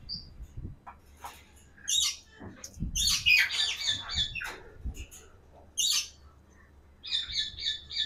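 African grey parrots calling in short, high squawks and chirps that come in several clusters, with a couple of dull knocks in between.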